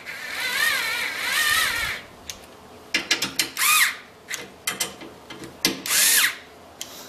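A hand ratchet driver clicking as the bolts on a motorcycle luggage rack's top plate are run down snug. There is a long run of fast clicks for about the first two seconds, then two shorter runs about halfway through and near the end, with single clicks between.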